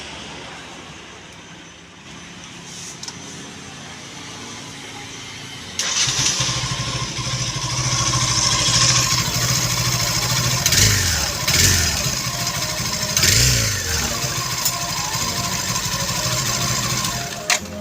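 Yamaha FZ-S single-cylinder motorcycle engine running at idle. About six seconds in it turns much louder and noisier, and it is then blipped up in revs three times in quick succession. This is the abnormal engine noise that comes with pulling the clutch, which the mechanic puts down to running with no engine oil and badly worn clutch plates.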